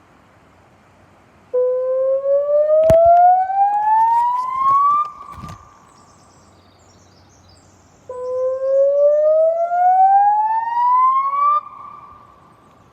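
Puntledge River electronic warning siren sounding in a test: two rising wails, each climbing steadily in pitch for about three and a half seconds, holding briefly at the top and then cutting off, with a few seconds' pause between. A sharp click comes early in the first wail.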